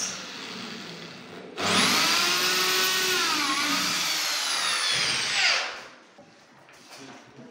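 Bosch electric drill boring into the edge of a cupboard door panel: it starts suddenly about one and a half seconds in and runs at full speed for about four seconds. Its pitch dips briefly midway as the bit loads up, then it is switched off and winds down.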